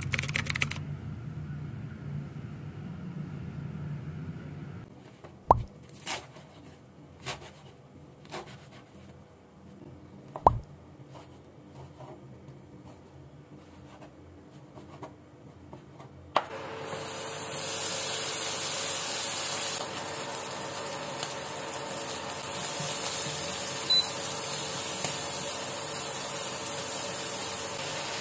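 A knife chops on a cutting board in scattered knocks about a second apart. About sixteen seconds in, food in a frying pan starts sizzling with a steady hiss that carries on. A low rumble comes before the chopping.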